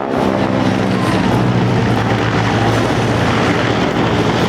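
Propeller aircraft engine droning loudly as the plane flies past, with a low steady tone under a wide rushing noise.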